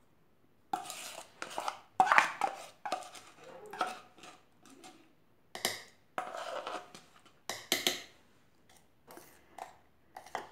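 Kitchen utensils clinking and clattering in irregular knocks and short scrapes, starting about a second in, as the mixer jar of cake batter is handled.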